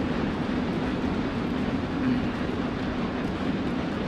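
Parliament members thumping their desks in applause, a dense, steady clatter of many hands.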